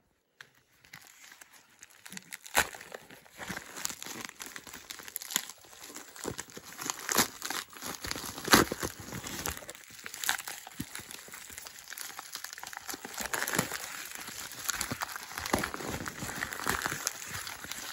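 Plastic bubble mailer being pulled and torn open by hand: irregular crinkling and crackling of the plastic, with a few louder sharp snaps. It starts about two seconds in and grows busier toward the end.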